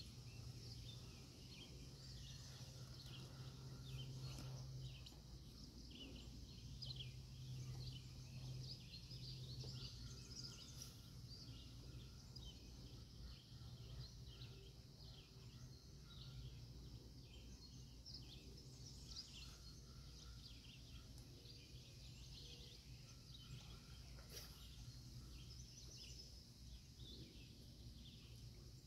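Faint birdsong: many short, high chirps and calls from several birds, over a steady low hum.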